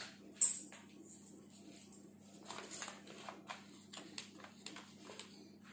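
Hands handling a laptop: light clicks and rustles, with one sharp click about half a second in and a run of smaller clicks later, over a steady low hum.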